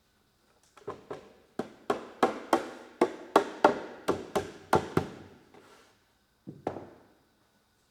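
Hammer blows on wood: about a dozen sharp knocks at roughly three a second, each ringing briefly. After a pause, one more knock comes near the end.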